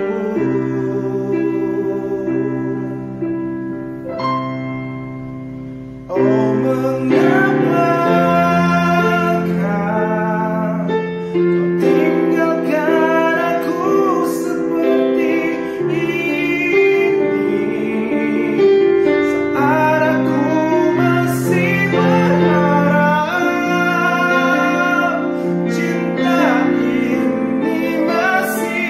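Piano playing a ballad accompaniment alone for about six seconds, then a man's voice comes in singing the Indonesian pop ballad over it.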